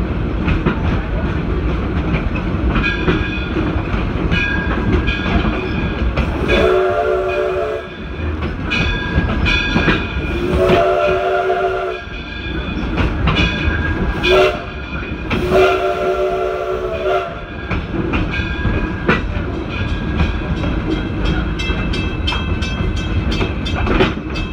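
Steam locomotive running with the train's steady clatter and rumble, its whistle blowing two long blasts, one short and one long: the grade-crossing warning signal.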